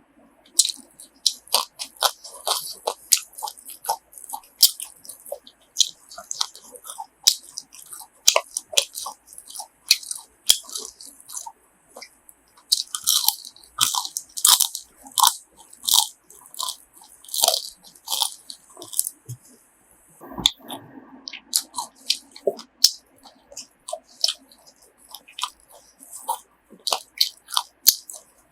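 Close-up chewing and biting of chewy grilled pork offal: irregular wet, crunchy mouth clicks and smacks, several a second.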